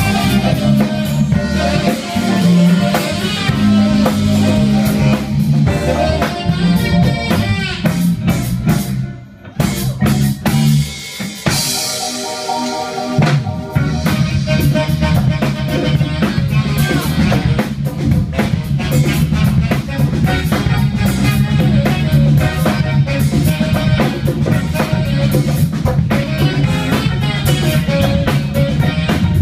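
Live band playing a groove with drum kit, electric bass, guitar and saxophone. About nine seconds in the band drops out for a short break, with a cymbal wash and sparse playing, then comes back in full a few seconds later.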